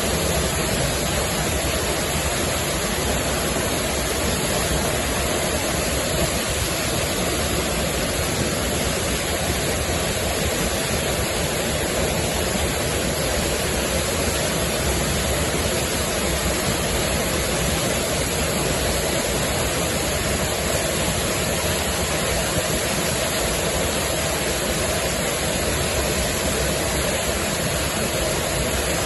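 Waterfall, a loud, steady rush of falling water.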